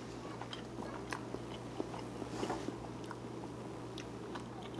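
A man chewing a mouthful of fried egg and rice, with small scattered clicks, over a low steady hum.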